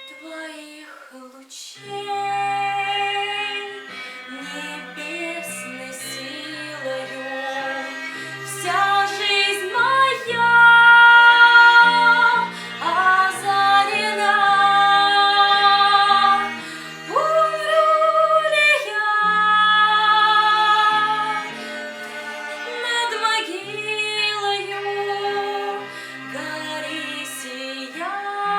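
A woman singing a slow Russian romance, holding long notes with vibrato, over instrumental accompaniment.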